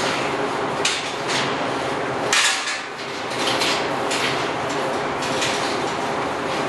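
Galvanised steel sow stalls and feeders clanking and rattling as sows move in them, with a loud metal clang about two and a half seconds in, over a steady background din.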